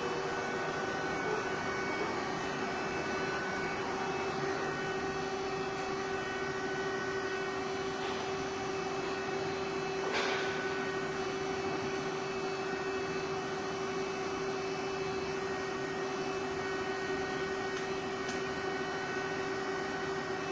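A double-column machining center running under power: a steady mechanical hum with one strong, even tone, and a single brief click about ten seconds in.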